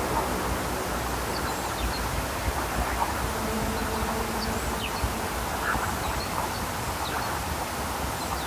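Steady low rumble and hiss of open-air noise, with a few short high chirps scattered through it.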